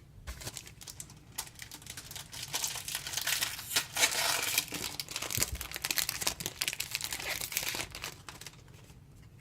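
Foil booster-pack wrapper being crinkled and torn open: a dense run of crackling that builds over several seconds and dies away near the end.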